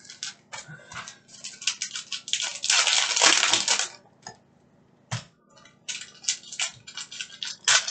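Trading card pack wrappers crinkling and tearing as packs are ripped open by hand, in quick irregular crackles with a longer, louder rip about midway.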